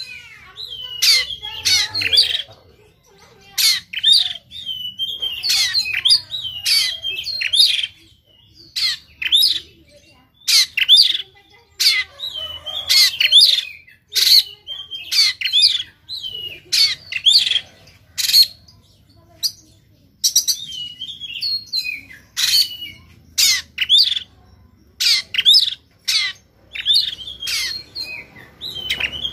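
Oriental magpie-robin singing in an agitated, fighting-mood way: loud, harsh, rapid phrases of sharp sweeping whistles and chattering notes, the rough 'shooting' calls (tembakan) that kacer keepers prize, repeated again and again with brief pauses.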